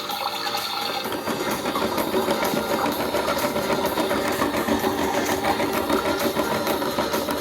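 Toy washing machine's small electric motor running, a rapid steady rattling whir that takes over from a water sound about a second in.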